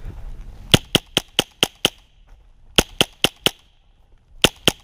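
Airsoft gun firing close by in three quick strings of sharp pops, about four or five a second: six shots, a pause, four more, then two or three near the end.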